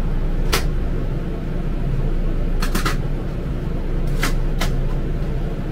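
A steady low mechanical hum, like a fan or air conditioner, with a few short sharp clicks over it: one about half a second in, a quick run of three near the middle, and two more near the end.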